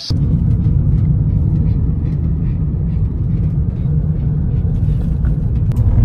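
Steady low road and engine rumble inside a moving car's cabin, starting suddenly at the cut.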